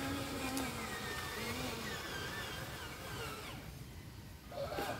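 Small electric motor and gearbox of a radio-controlled dump truck whining as it drives carrying a load of soil, the pitch rising and falling with the throttle. The sound drops away briefly about three and a half seconds in.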